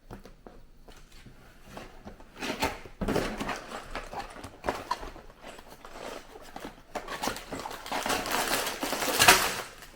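A small cardboard LEGO set box being opened and emptied by hand: irregular rustling, tearing and knocks of cardboard, paper and plastic parts bags. It grows louder towards the end.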